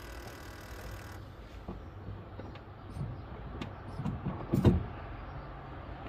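BMW car engine idling with a steady low rumble, with a few sharp knocks and a louder thump about four and a half seconds in.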